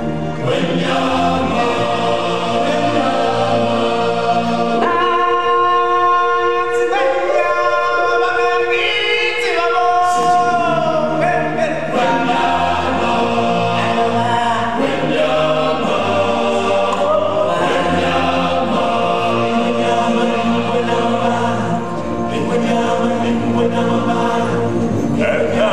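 A choir of singers performing a song in harmony. About five seconds in, the lower voices drop out for a few seconds, leaving higher held notes that glide, before the full group comes back in.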